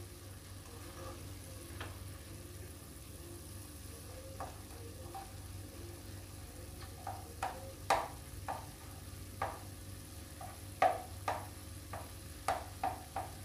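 A black spatula stirring chopped broccoli in a nonstick pan: irregular scrapes and taps of the spatula against the pan, more frequent in the second half, over a faint sizzle of the vegetables cooking and a steady low hum.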